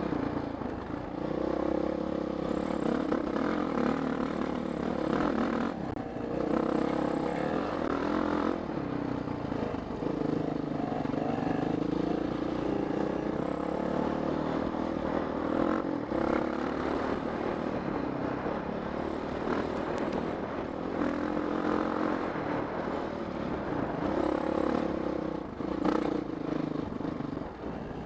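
Honda CRF450X single-cylinder four-stroke dirt bike engine running on the move, its pitch rising and falling with the throttle, with clatter from riding over rough ground.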